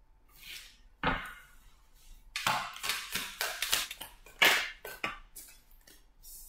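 Tarot cards being shuffled and handled, a run of short, quick slaps and rustles, busiest from about two and a half to four seconds in, as a card is drawn from the deck.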